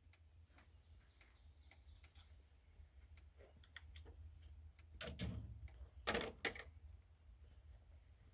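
Faint scattered clicks and taps of parts being handled during dismantling, with a few louder knocks about five and six seconds in, over a low steady hum.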